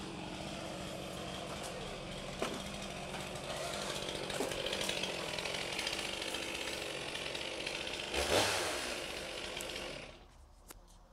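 Chainsaw running and cutting into a conifer trunk, with a brief louder surge about eight seconds in; it dies down near the end.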